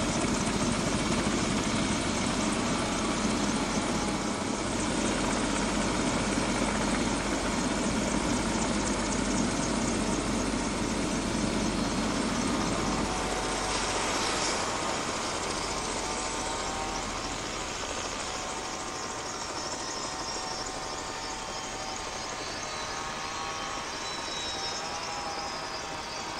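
Bell 407GXi helicopter's turboshaft engine and rotor running on the ground. About halfway through, the blade noise drops away and several turbine whine tones fall steadily in pitch as the engine is shut down and spools down.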